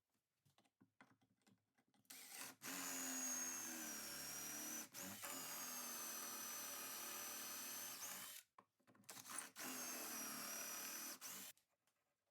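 An electric power tool's motor runs in two stretches, about six seconds and then about three, with a steady high whine that dips briefly a couple of times as it works.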